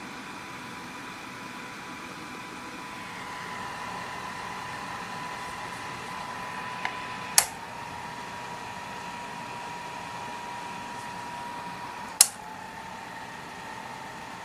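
Electric fan running with a steady rushing hiss and a thin motor whine. Two sharp clicks come about seven and twelve seconds in, and after each the whine steps slightly lower in pitch.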